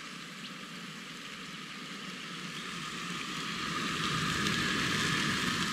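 Chicken fillets sizzling in a frying pan on a twin-burner gas camp stove: a steady frying hiss that grows louder over the last couple of seconds.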